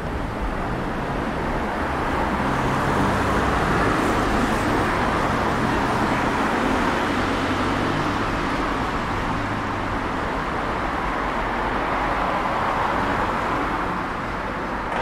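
Road traffic: a motor vehicle passing close by, its noise swelling a couple of seconds in, holding, and fading towards the end.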